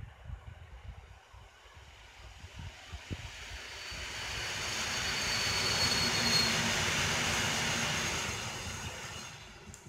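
Polregio EN57FPS electric multiple unit passing at speed: its rolling noise swells as it approaches, peaks as the cars go by and fades away near the end, with a brief high whine as it comes in.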